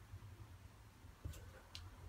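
A quiet room with a low hum, broken past the middle by two faint, short clicks from budgerigars perched on a wire cage top.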